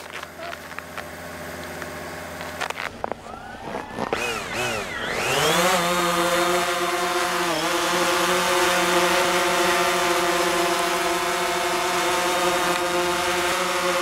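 Quadcopter drone's motors and propellers spinning up with a rising whine about four to five seconds in, then the drone lifting off and hovering with a steady, even buzz.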